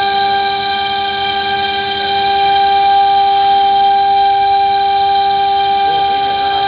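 Water-cooled 3.2 kW spindle of a ZHUOKE ZK-1325 CNC router running at a steady high pitch as its bit cuts grooves in 15 mm MDF. The whine grows slightly louder about two and a half seconds in.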